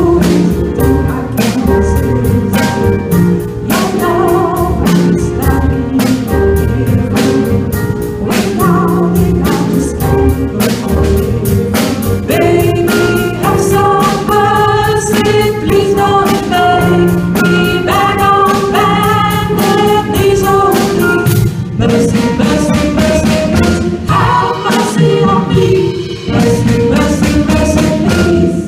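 A small band playing live on drum kit and keyboards, with a voice singing a melody over it that comes through strongest from about halfway.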